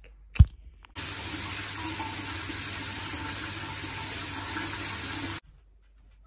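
A sharp knock, then a shower running: a steady rush of water that starts abruptly about a second in and cuts off suddenly about four and a half seconds later.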